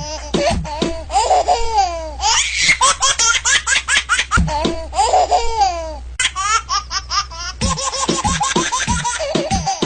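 A baby laughing in quick repeated bursts of laughter, with music underneath.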